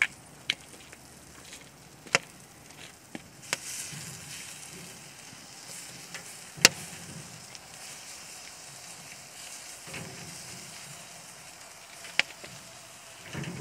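Beef roasts sizzling on a grill grate over a wood fire, the hiss growing louder about four seconds in. Sharp pops and clicks are scattered through it, the loudest about six and a half seconds in.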